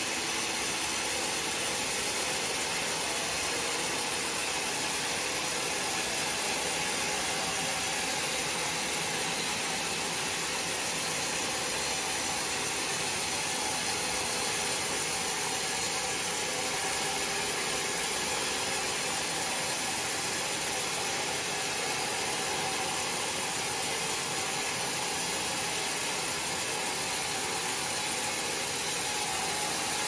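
Band sawmill blade ripping lengthwise through a large log, with the saw's motor running under load. The sound is a steady, even whir of cutting throughout.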